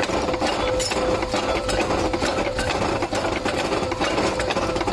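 Powered metalworking machine running with a steady hum, over a busy, irregular clatter of metallic clicks and clinks as a steel hook piece is worked in its die.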